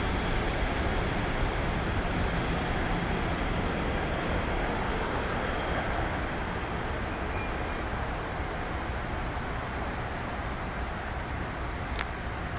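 Jet engine rumble of a departing Boeing 747-400F freighter, a steady low roar slowly fading as the aircraft climbs away. A brief sharp click near the end.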